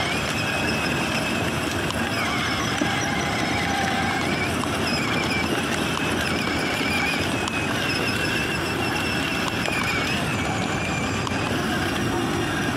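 Battery-powered ride-on toy jeep driving over wet asphalt: its electric drive motors give a steady, slightly wavering high whine over a constant hiss.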